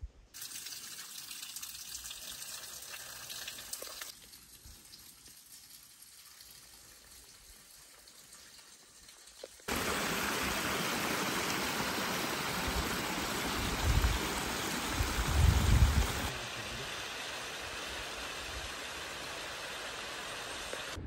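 Running water of a small rocky mountain stream, in several cut-together stretches. It is quiet at first, then much louder from about ten seconds in, where the water cascades over stones, with a couple of wind gusts on the microphone.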